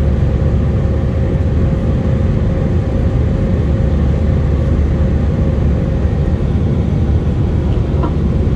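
Airbus A319 cabin noise in flight, heard from a window seat over the wing: a steady deep rumble of the CFM56 turbofan engines and rushing air, with a steady hum running through it.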